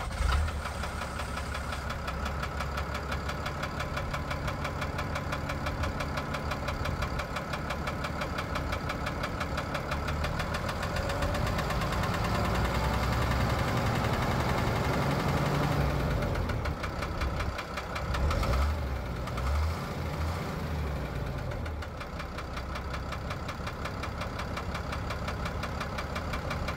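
Cummins six-cylinder turbo diesel of a Ford F650 dump truck idling with a steady diesel clatter, the engine note swelling a little about halfway through.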